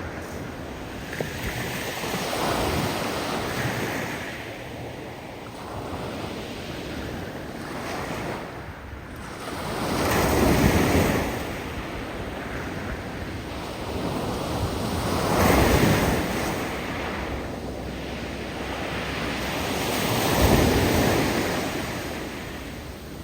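Big waves breaking on a steep beach of loose cobbles and pebbles: three loud surges about five seconds apart, each followed by a hiss as the receding water tumbles the loose rocks.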